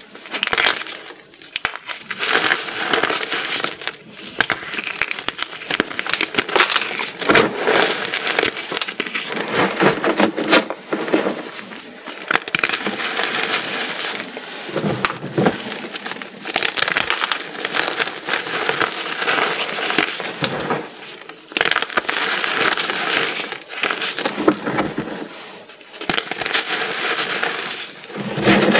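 Small pieces of dyed, reformed gym chalk being crushed, with dense crunching and crumbling in bouts separated by brief pauses.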